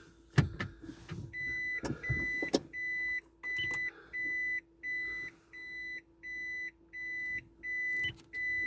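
A few knocks and a clunk as a car door is opened and shut, then a car's warning chime beeping steadily, about three beeps every two seconds, with a faint steady hum underneath.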